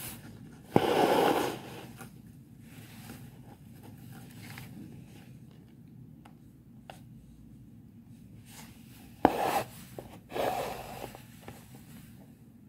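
Embroidery thread drawn through fabric stretched in a hoop: three short rasping rubs, the first about a second in and two more close together near the end, the first two each opening with a sharp tick.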